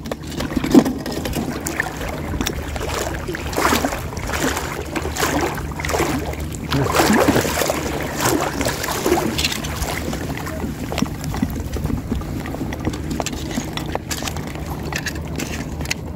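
Wading strides through shallow seawater, the water swishing and sloshing around the legs about once a second, over a steady low hum. A sharp knock about a second in.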